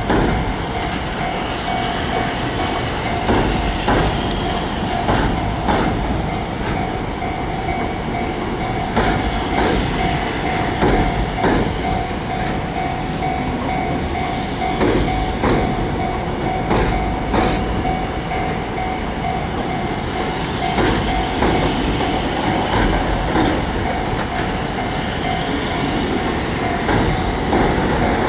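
Kintetsu electric train running past a level crossing, its wheels clacking irregularly over the rail joints above a steady rumble. A steady electronic tone, likely the crossing signal, rings throughout.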